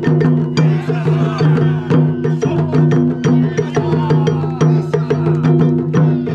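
Japanese taiko drum ensemble playing: quick, even strokes with sharp wooden clicks over a steady low sustained tone.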